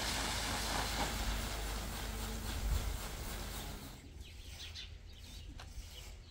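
A steady rushing rumble that fades away about four seconds in, leaving a quieter background with a few faint bird chirps.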